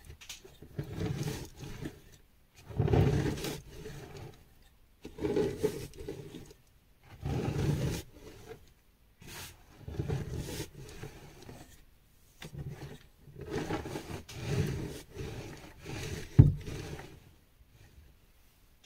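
A chalk-caked rolling pin rolled back and forth over a bed of crushed gym chalk, crunching and grinding the powder in repeated strokes about every two seconds. Near the end there is one sharp crack.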